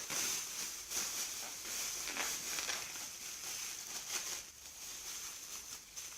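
Thin plastic bag crinkling and rustling as it is handled, in a run of irregular small crackles.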